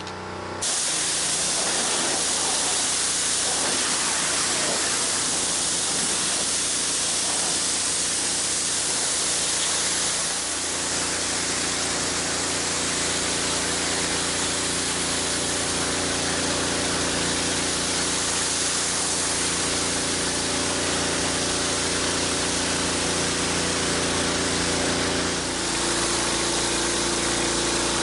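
High-pressure water from a pressure washer's four-tip water broom blasting across concrete: a loud, steady hiss that starts about half a second in, over the pressure washer's steady hum. The hum shifts pitch about ten seconds in and again near the end.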